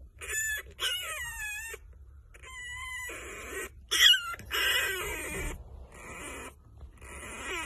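Very young French bulldog puppy whining and crying in a run of short, high-pitched squeals, several sliding down in pitch. The loudest is about four seconds in.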